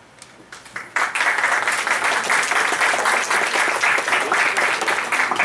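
Audience applauding: a few scattered claps at first, then full, steady applause from about a second in.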